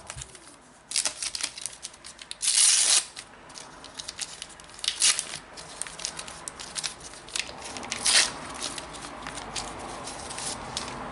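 A foil trading-card packet being torn open and crinkled by hand, a series of sharp rips with the loudest, longest rip about two and a half seconds in, then further rustling and crinkling as the cards are taken out.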